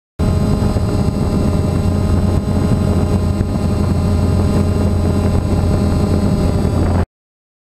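Drone motors and propellers running steadily, a hum with a whine of many steady tones above it; it starts abruptly and cuts off suddenly near the end.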